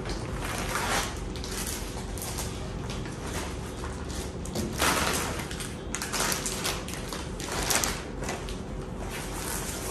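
Groceries being handled and taken out of a reusable shopping bag, with several louder rustles as the bag and packaging are moved.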